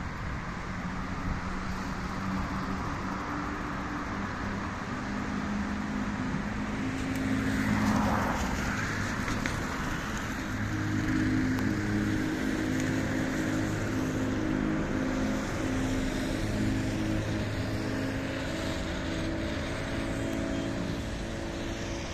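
Road traffic on a rain-wet avenue: a steady engine hum, with a vehicle passing close about eight seconds in, the hiss of its tyres on the wet road rising and fading.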